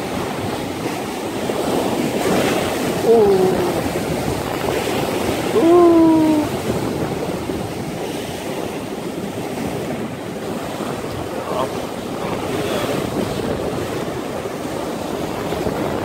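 Heavy surf breaking and washing over shoreline rocks, with strong wind buffeting the microphone.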